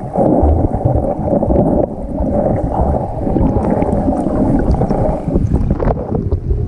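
Muffled, steady rumble of moving stream water, with wind buffeting the microphone.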